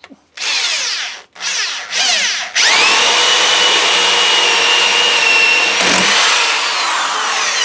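Power drill boring into a wooden 2x4 with an Irwin Speedbor spade bit: three short trigger bursts that spin the bit up, then steady running at full speed with a constant high whine for about five seconds.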